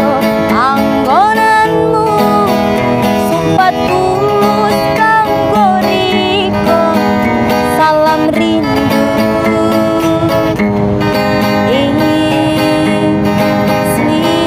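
Acoustic guitar strumming under a melody line that slides and bends between held notes, in a busker's performance of a Javanese song.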